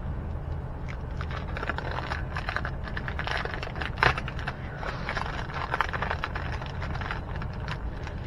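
Plastic packaging crinkling and rustling as a small packet is opened and its contents pulled out, with a sharper crackle about four seconds in, over a low steady hum.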